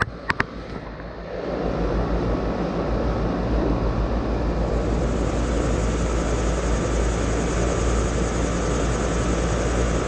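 Air-conditioner condensing unit running: a steady rush of air from the condenser fan over a low compressor hum. There are a few sharp clicks at the very start, and the air noise swells about a second and a half in.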